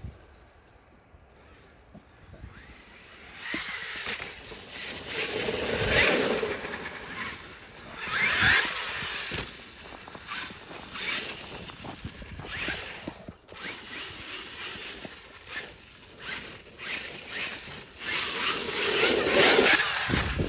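Traxxas X-Maxx 8S RC monster truck driving in bursts, its electric motor and tyres rising and falling with the throttle over rough ground, with a couple of sharp knocks about six and eight and a half seconds in.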